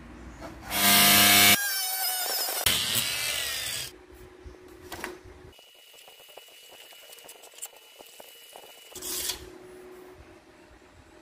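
A small power tool runs loudly for about three seconds, its whine wavering in pitch, then stops. Light clicks and knocks follow, with a short noisy burst about nine seconds in.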